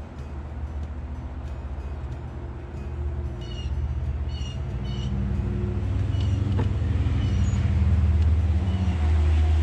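A steady low engine-like hum that slowly gets louder, with a few short high chirps in the middle.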